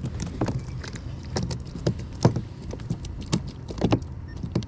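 Irregular light knocks and taps on a plastic fishing kayak, several a second, over a steady low rumble of wind on the microphone.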